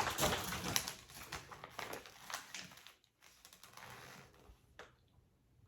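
Packaging rustling and crinkling as a parcel is handled and unwrapped: a dense run of small crackles that thins out after about three seconds, then a faint rustle and a single small click near the end.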